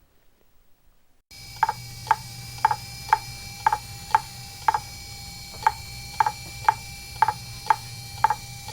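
Steady ticking at about two ticks a second, like a clock, over a low steady hum and a faint high whine. It starts about a second in, after a short silence.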